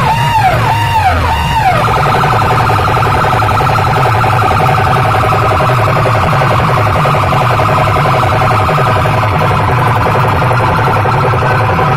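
DJ sound system blasting through banks of horn loudspeakers. A warbling, siren-like electronic effect sweeps up and down about twice a second, then gives way a little under two seconds in to a dense, rapidly pulsing buzz over heavy bass.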